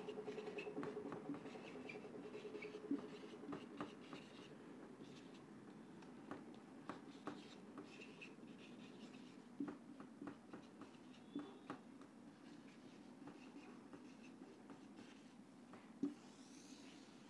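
Marker pen writing on a whiteboard, faint, with short strokes and scattered small taps as words are written out.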